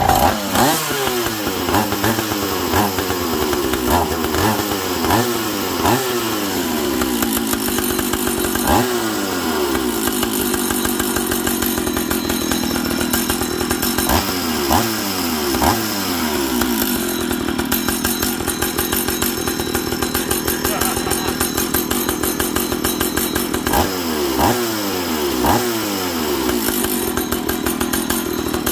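Old Stihl 056 Magnum II two-stroke chainsaw running: the throttle is blipped again and again, the revs falling back after each one, then the engine runs steadily for about fifteen seconds before a few more throttle blips near the end.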